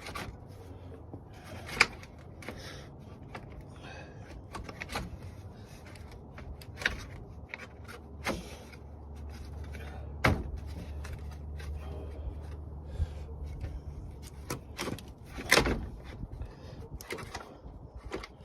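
Irregular sharp knocks and clicks of hand work, as parts of a radiator fan assembly and its clips and trim are worked into place. A low steady hum sounds for several seconds in the middle.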